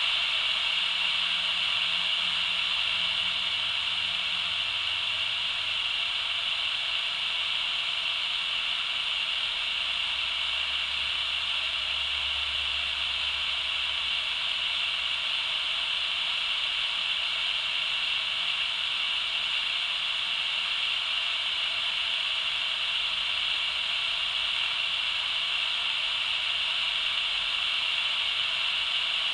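Cheap walkie-talkie's superregenerative receiver putting out a steady rushing hiss through its small speaker, the noise such a receiver makes when no transmission is coming through.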